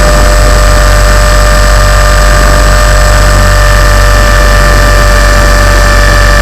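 Tarot 450 electric RC helicopter's brushless motor and gear drive whining steadily with the rotor hum, recorded by a camera mounted on the helicopter itself. The whine holds one pitch with no change in speed, and the sound is very loud and close.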